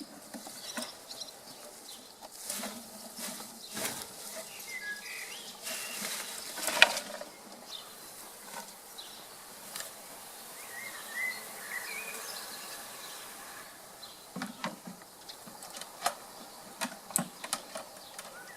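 Scattered knocks and rustling from handling the branch and box while a honeybee swarm is being boxed, the sharpest knock about seven seconds in, with a few short bird chirps between.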